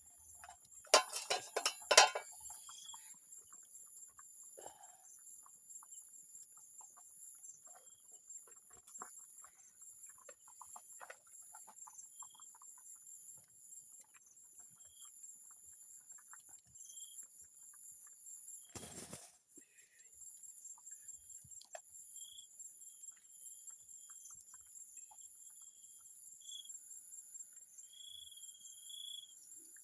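Steady high-pitched insect chorus, with short faint chirps at intervals. A cluster of loud clattering knocks comes about a second in, and a brief rush of noise near the middle.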